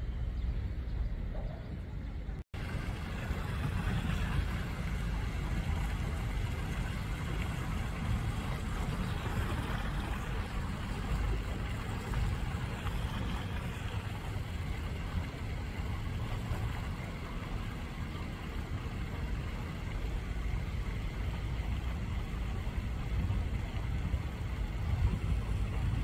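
Steady seaside noise at the water's edge: wind rumbling on the microphone over a wash of water. There is a brief dropout about two and a half seconds in.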